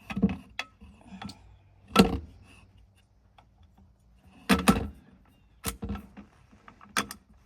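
Sharp metallic clicks and clacks of a Barrett MRAD ELR rifle being put together by hand, its receiver pins being pushed home. There are about half a dozen separate knocks, the loudest about two seconds in and a double clack around four and a half seconds.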